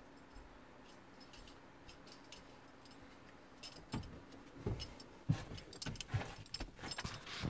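Quiet steady room hum for about four seconds, then a series of knocks, clicks and rustles as a person comes back to the desk and handles a smartphone among the clamp gear.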